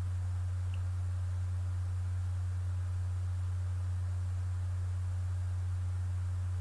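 Steady, unchanging low-pitched electrical hum, one deep tone, over faint hiss.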